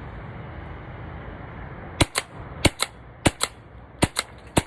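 ANS GX-3 paintball marker firing about five shots in a row, roughly 0.6 s apart, starting about two seconds in. Each shot is a sharp pneumatic crack, mostly heard as a quick double crack.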